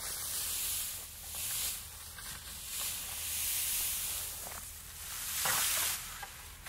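A high hiss that swells and fades every second or two, over a faint steady low hum.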